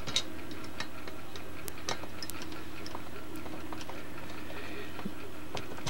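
Light, irregular clicks and ticks of a CPU fan and its screws being handled and fitted onto a heatsink, over a faint steady hum.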